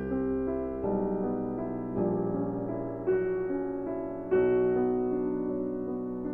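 Background piano music: slow, gentle chords and melody notes.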